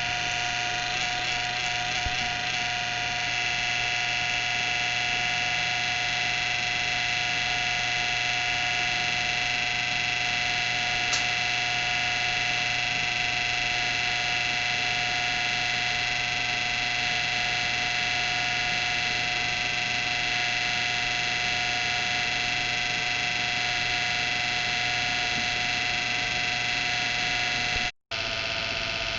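A PC's abnormal noise: a loud, steady whirring whine made of several held tones, which the owner takes as a sign that the PC is nearing its end. It cuts out for an instant near the end and comes back slightly lower in pitch.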